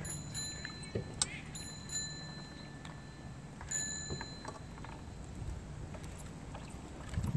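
Adaptive tricycle rolling along an asphalt path: faint tyre noise with scattered light clicks. Two spells of a thin, high, steady ringing tone come in, the first early and about two seconds long, the second about four seconds in and shorter.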